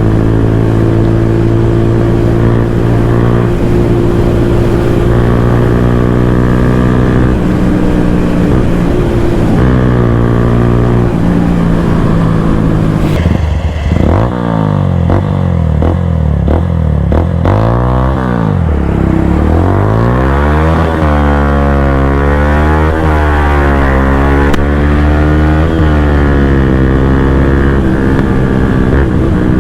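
Bajaj Pulsar N160's single-cylinder engine running loud through a full-system aftermarket exhaust. It holds steady revs for the first dozen seconds or so. Then the engine note falls and climbs again and again as the throttle is closed and reopened.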